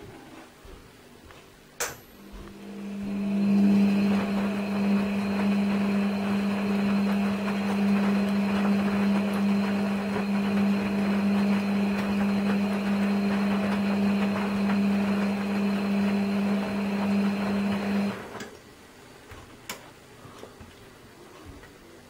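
Front-loading washing machine's drum motor turning the wash: a click, then a steady mechanical hum that builds over about two seconds, holds, and stops about eighteen seconds in, followed by another click.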